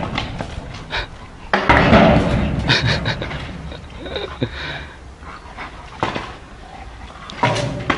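Dog panting, with a few sharp knocks as the stick it carries strikes the metal gate.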